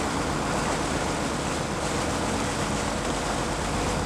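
Steady low hum of a boat's engine running under an even rush of wind and water noise.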